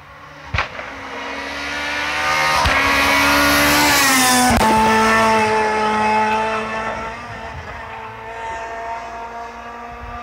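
Rally car passing at speed: its engine note grows louder on the approach, drops in pitch as it goes by about four and a half seconds in, then fades as it drives away. A sharp click about half a second in, and a couple of short cracks as the car passes.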